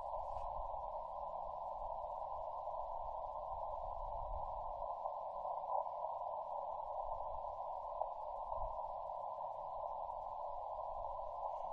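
Steady static hiss from a Yaesu FT-891 transceiver's receiver, narrowed by its CW filter into an even, mid-pitched hiss.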